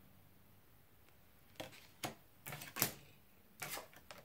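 Tarot cards being handled and drawn from the deck: a quick series of short card flicks and rustles, starting about a second and a half in.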